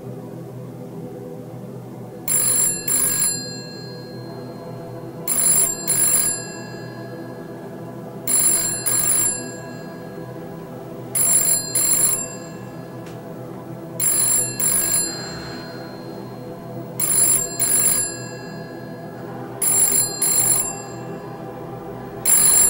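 Telephone ringing in pairs of short rings, about every three seconds, eight times, starting about two seconds in. A low steady drone of background music runs underneath.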